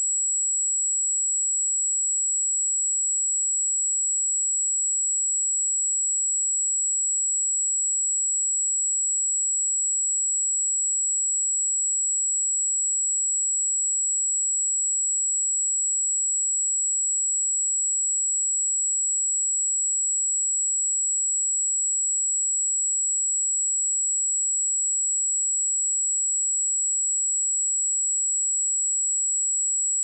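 A single steady, high-pitched 7752 Hz sine-wave test tone, held at constant level.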